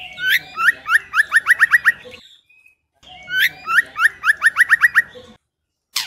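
Female white-rumped shama calling: two bursts of rapid rising whistled notes, about six or seven a second, each burst lasting about two seconds with a short pause between.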